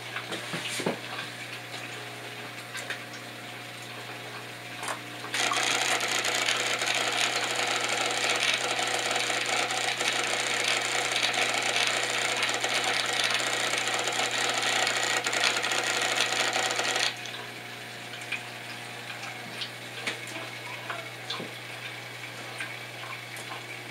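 Reef aquarium water circulation: a steady low pump hum with small clicks, and from about five seconds in a loud rush of churning water that starts and stops abruptly about twelve seconds later.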